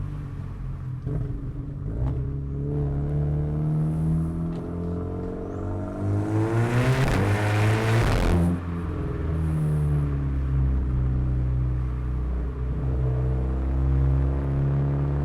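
Audi A3 2.0 TFSI turbocharged four-cylinder with a 2.5-inch aftermarket exhaust accelerating. The revs climb for several seconds to a loud peak, drop abruptly at a gear change about eight seconds in, and then the engine runs steadily at lower revs.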